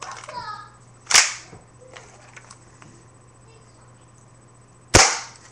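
Two sharp plastic clacks from a clear plastic Smith & Wesson spring airsoft pistol being handled, about a second in and again near the end.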